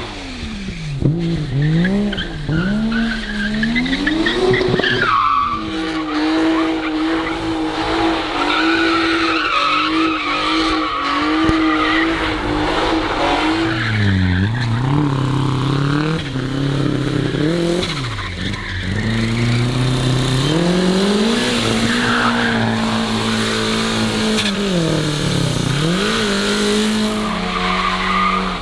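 Car engines revving hard while drifting: held at high revs for several seconds, then dipping and rising again several times, with tyres skidding on wet asphalt.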